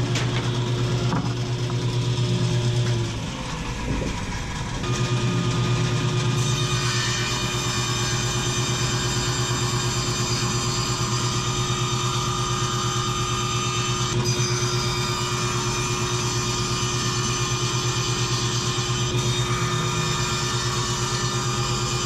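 Table saw motor running with a steady hum, briefly dropping away about three to five seconds in before running steadily again.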